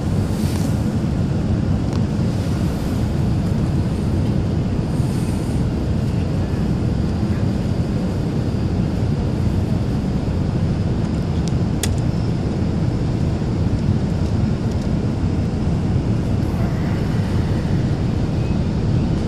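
Steady low rumble of an Airbus A380's engines and rushing airflow, heard inside the passenger cabin on the landing approach, with a single faint click about twelve seconds in.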